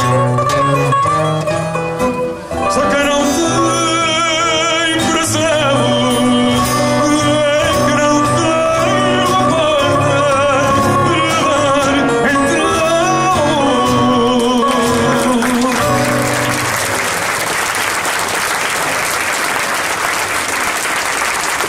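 A man singing fado with vibrato over a Portuguese guitar and a classical guitar, the song ending about sixteen seconds in. Audience applause follows.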